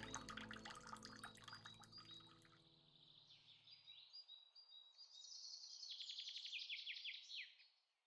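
Quiet background music fades out over the first few seconds, then a songbird sings, ending in a fast descending trill that stops shortly before the end.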